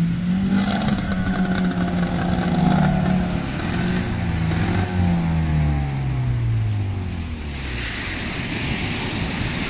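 A fishing boat's outboard motor running, its note dropping in pitch about five seconds in and then dying away, leaving the hiss of waves breaking on the beach.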